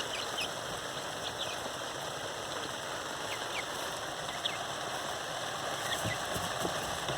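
Steady rain falling, with a few faint, short high peeps from young Orpington chickens scattered through it.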